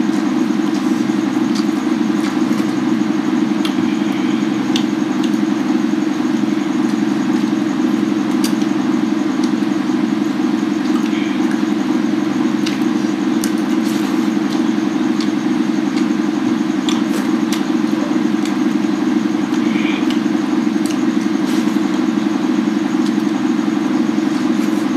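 A loud, steady mechanical drone, like a running motor or engine, unchanging throughout, with faint scattered clicks of fingers and food on steel plates.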